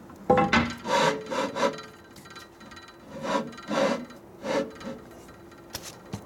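Ford four-cylinder flathead cylinder head scraping as it is slid back and forth on the engine block's deck, in two bouts of a few rough strokes each, with a couple of light knocks near the end.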